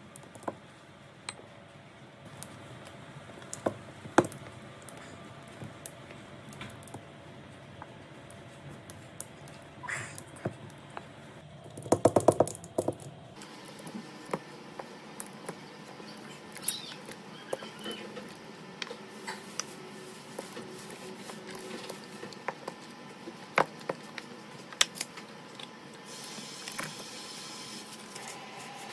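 A metal ice-cream scoop working ice cream out of a paper pint tub into a glass bowl: scattered scrapes, clicks and taps. About twelve seconds in comes a quick run of louder knocks.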